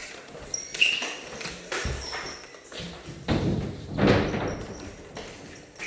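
Collated drywall screw gun driving screws into drywall: short motor whines and clicks, with knocks and thuds as the tool is pressed to the board. There are two louder, longer bursts about three and a half and four seconds in.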